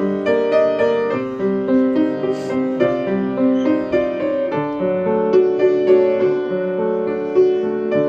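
Piano playing the instrumental introduction of a song, a flowing pattern of notes struck several times a second.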